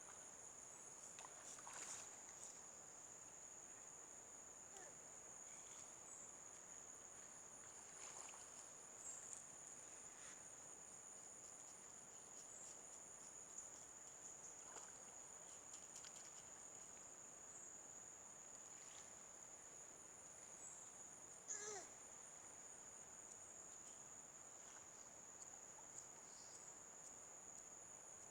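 Faint, steady high-pitched drone of a tropical insect chorus, with scattered faint chirps and one brief louder call about three quarters of the way through.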